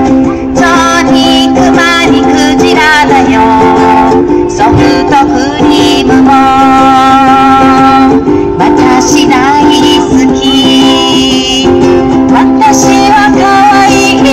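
Hula song: a woman singing a slow melody with vibrato over steady held chords and plucked strings, amplified through PA speakers.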